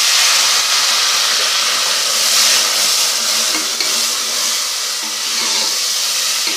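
Onion and garlic-ginger masala in hot ghee in an aluminium pot, sizzling and hissing hard with a splash of water just added and steam rising, easing off a little toward the end.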